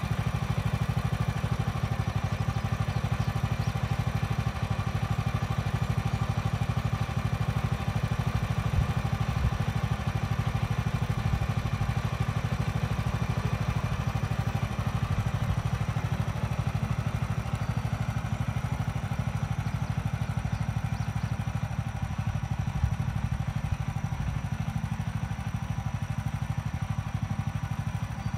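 Gas engine of a Woodland Mills HM126 portable bandsaw sawmill, running steadily with an even, rapid low pulse.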